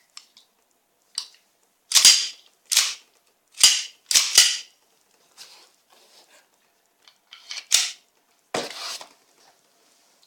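Handling of an airsoft Colt M1911 A1 pistol and its parts: a series of about eight sharp clacks and snaps, the loudest bunched between two and five seconds in, with two more near the end.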